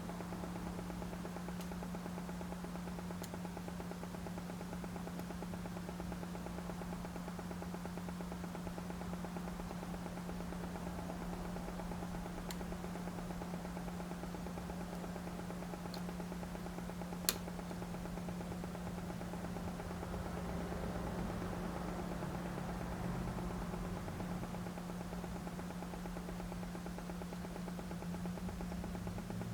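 Steady low electrical hum from the powered mixer and test bench, with a few faint clicks and one sharp click about 17 seconds in.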